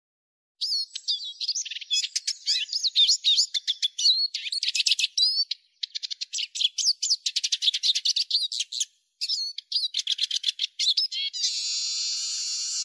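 Eurasian siskin singing: fast, high twittering and trilling notes in three runs with short breaks, ending in a long, steady buzzing note.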